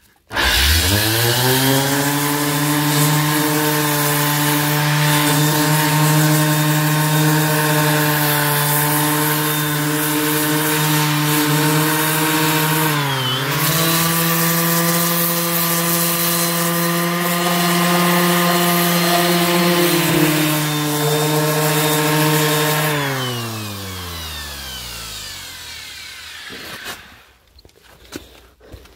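A Black+Decker random orbital sander starts up and runs steadily while sanding old antifouling paint off a boat hull. About halfway through its pitch dips briefly, then recovers. Near the end it is switched off and winds down over a few seconds.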